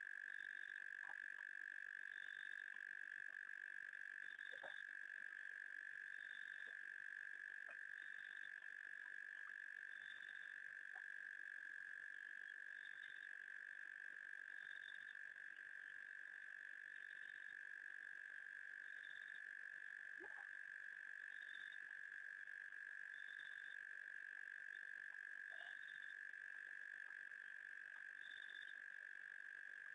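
Faint night chorus of frogs and insects at a waterhole. A steady high trill carries throughout, with a short, higher chirp repeating about every two seconds.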